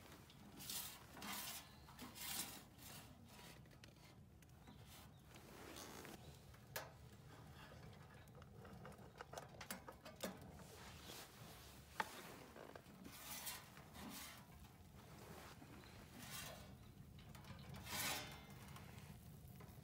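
Quiet, scattered handling sounds of leather-gloved hands on a steel rocket stove: short rubbing and scraping swishes and a few sharp metal clicks, one loudest about twelve seconds in, with a longer scrape near the end as a pizza pan slides out of the oven. A faint steady low hum lies underneath.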